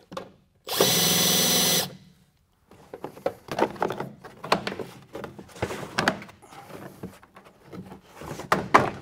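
Cordless drill spinning steadily for about a second, backing a fastener out of a wheel-well liner. After it comes a run of irregular rustling and scraping as the fibrous fender liner is worked loose and pulled out by hand.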